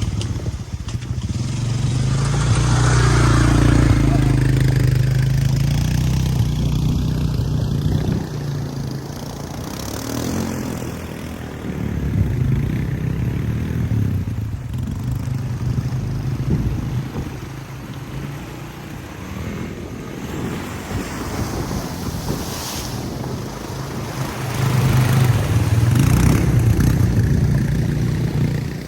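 Honda four-wheeler engine running under throttle as it pushes through deep floodwater, louder near the start and again near the end, with water noise underneath.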